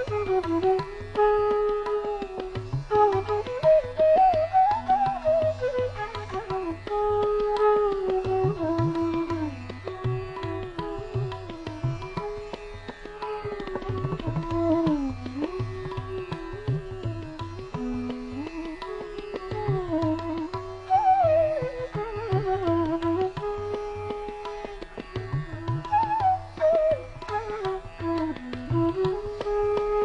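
Background music: an Indian classical-style instrumental, with a gliding, ornamented melody over hand-drum strokes.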